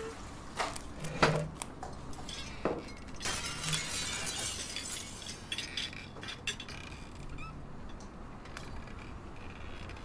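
Small hard objects clinking and knocking as they are handled on a shop counter, a few sharp knocks in the first three seconds, then a jingling rattle for a second or two, then lighter scattered clicks.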